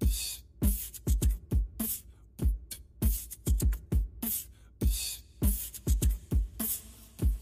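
End-screen background music: a sparse drum beat of deep, downward-sliding kick drums and sharp snare or hi-hat hits, with no melody.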